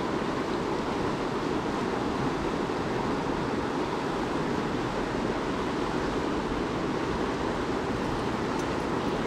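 Fast, strong river current rushing steadily over rocks.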